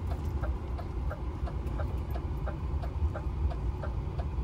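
Truck cab with the engine running as a steady low rumble, and the indicator relay ticking evenly about three times a second.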